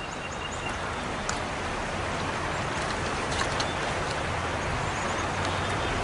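Shallow river water running over stones: a steady rushing, with a few faint clicks.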